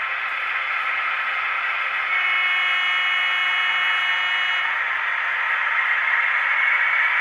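H0-scale model train running on the layout: a steady hiss of wheels rolling on rail with thin motor whine tones. It gets a little louder about two seconds in, and the whine creeps up in pitch near the end.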